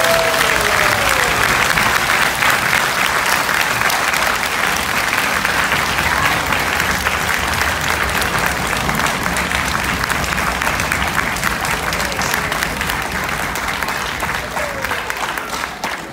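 Large audience applauding, a dense sustained round of clapping that dies away near the end.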